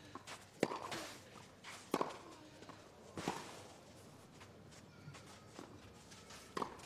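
Tennis racket strikes on the ball during a baseline rally: three sharp hits about a second and a quarter apart, then after a pause another near the end.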